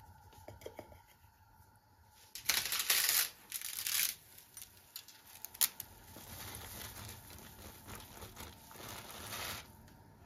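Dry spaghetti snapped by hand into a pot of boiling water: two loud bursts of brittle crackling a little over two seconds in and again just after, a sharp snap, then a softer steady crackle mixed with bubbling water that stops shortly before the end.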